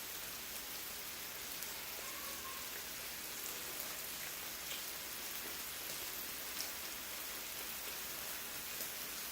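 Thin-sliced lamb sizzling steadily on a grill, with a few faint pops of fat.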